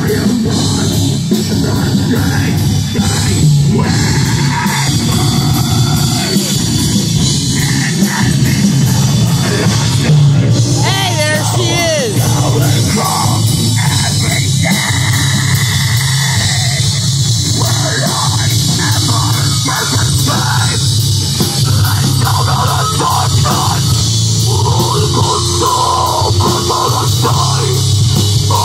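A live rock band playing loudly: distorted electric guitars and a drum kit, with a singer's voice over the band toward the end.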